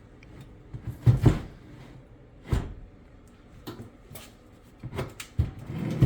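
Several separate knocks and clunks as the loosened glass cooktop and its frame are lifted and handled, the loudest about a second in and another at about two and a half seconds.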